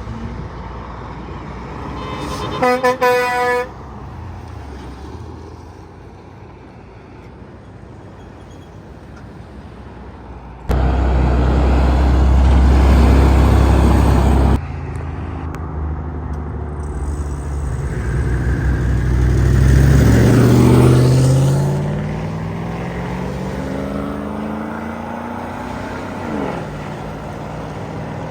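A truck's horn sounds about two to three seconds in: a few quick toots, then a short held blast. Later a loud low rumble starts and stops abruptly. Then a heavy vehicle engine climbs steadily in pitch as it accelerates, loudest about twenty seconds in.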